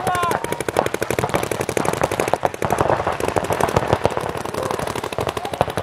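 Paintball marker fire: rapid, continuous strings of shots, many per second, going on without a break.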